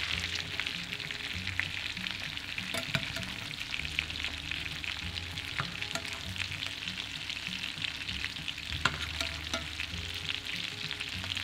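Butter foaming and sizzling in a hot frying pan around seared potatoes, with a steady crackle of small pops. A metal spoon scrapes and stirs as it bastes the potatoes with the melted butter.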